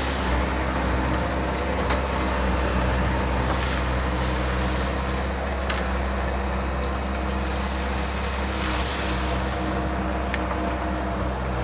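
Bobcat skid steer's diesel engine running steadily, with a few sharp cracks or knocks over it.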